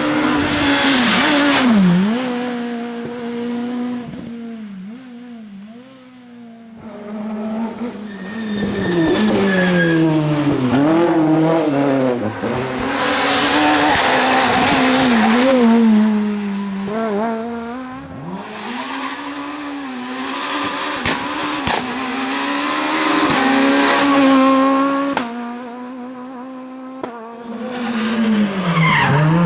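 Renault Clio S1600 rally car's 1.6-litre four-cylinder engine revving hard, its pitch climbing through the gears and dropping sharply on shifts and lifts off the throttle, again and again. Loudness swells and fades as cars approach and go away, with quieter moments about six seconds in and near the end.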